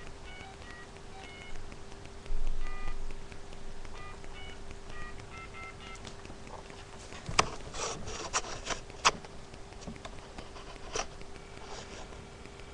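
Touch-tone telephone keypad dialing a number: a quick run of short dual-tone beeps over about five seconds, with a bump partway through. A few sharp clicks follow on the line.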